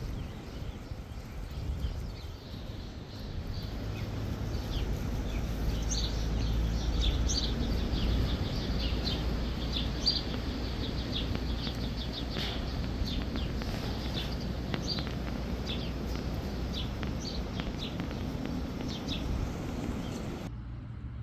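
Wind rumbling on the microphone, with small birds chirping in short, scattered high notes.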